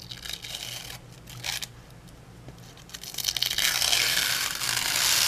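Press-and-seal plastic wrap being peeled up off a paint-mask stencil: a few short crackling pulls, then a longer, louder peel from about three seconds in.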